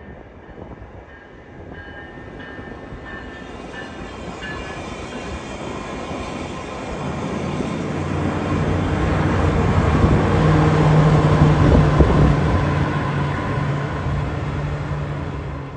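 VIA Rail Siemens Venture passenger train passing: rumble of wheels on the rails growing louder as it approaches, joined about seven seconds in by the steady hum of its Siemens Charger diesel locomotive, loudest as the locomotive goes by near the end.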